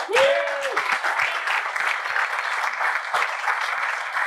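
A crowd of people clapping in applause, starting all at once and keeping up steadily, with one short whoop from someone in the crowd just as it begins.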